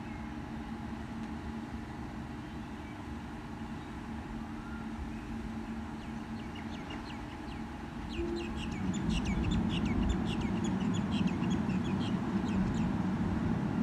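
Steady hum of an idling diesel railcar, with birds chirping rapidly over it from about halfway. Past the middle a louder low rumble comes in and holds to the end.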